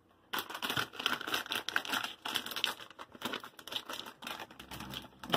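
Plastic bag of shredded cheese crinkling and tearing as it is pulled open by hand with some struggle. There is a rapid, continuous run of crackles starting about a third of a second in.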